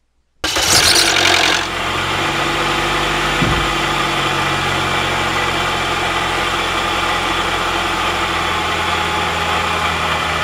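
Car engine running at a steady idle under the open hood, the alternator charging the battery at about 14.2 V. The sound cuts in suddenly about half a second in and is louder and hissier for about a second before settling.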